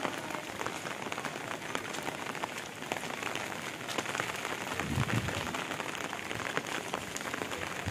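Steady rain falling, with dense ticking of individual drops hitting surfaces. A brief low sound rises under it about five seconds in.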